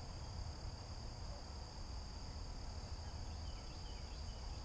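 Outdoor ambience of insects in a steady, high-pitched drone over a low rumble, with a few faint chirps near the end.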